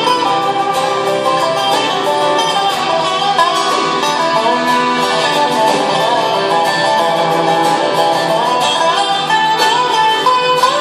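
Acoustic folk-bluegrass ensemble playing an instrumental live: a dobro carries a lead melody that slides up and down in pitch, over guitar, fiddle, accordion, double bass and drums.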